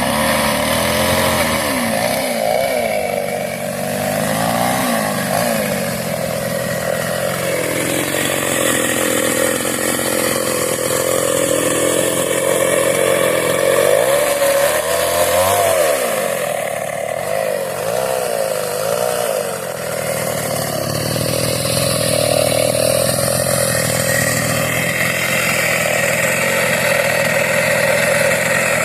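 Kawashima chainsaw running continuously. Its pitch wavers and sags twice, once a couple of seconds in and again about halfway through.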